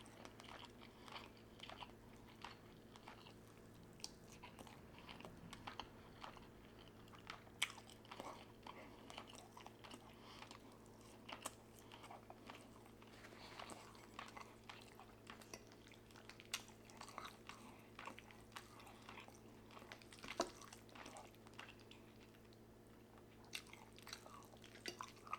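Faint close-up chewing of soft, tender food: scattered small wet mouth clicks and smacks, irregular and quiet, over a faint steady low hum.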